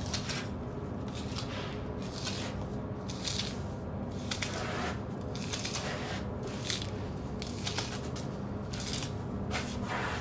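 Plastic conduit jointer scraping along mortar joints between glass blocks in short, irregular strokes as the joints are tooled smooth, over a steady low hum.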